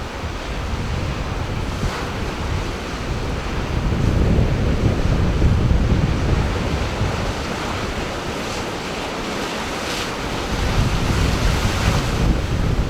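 Sea surf washing in and drawing back, with wind buffeting the microphone in gusts. The surge swells about four seconds in and again near the end.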